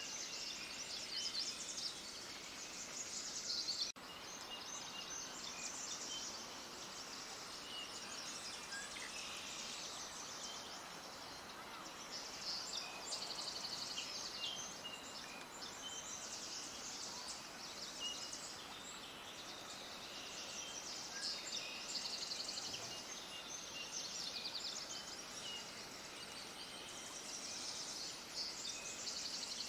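A dense chorus of many small birds chirping rapidly and continuously, high-pitched, over a faint steady hiss, with a momentary break about four seconds in.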